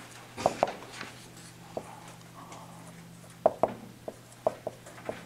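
Dry-erase marker writing on a whiteboard: a series of short, irregular taps and squeaks from the pen strokes, over a steady low hum.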